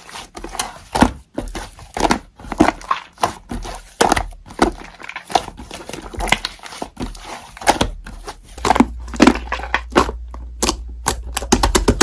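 Slime being squished and poked by hand, making an irregular run of sticky clicks and crackles, with a low rumble underneath from about two-thirds of the way through.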